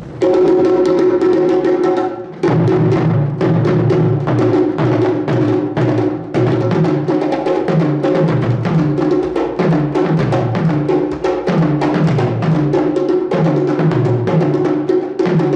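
Hand drums played by two drummers, one with a curved stick and one with bare hands. About two seconds of a steady, pitched roll, then a driving rhythm of rapid strikes over low strokes that repeat about twice a second.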